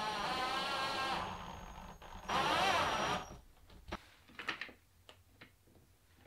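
Cordless drill running in two bursts against the ceiling. The first lasts about a second and a half and fades out; the second, about a second long, has a whine that rises and then falls. A few light clicks and taps follow in the second half.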